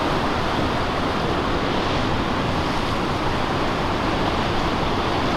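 Ocean surf on a river-mouth bar: a steady rush of breaking waves, with wind buffeting the microphone.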